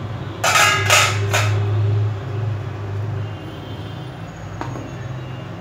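A wire cooking stand clattering against the inside of an aluminium pot, three quick ringing metal clanks about half a second in, then a single light click near the end, over a steady low hum.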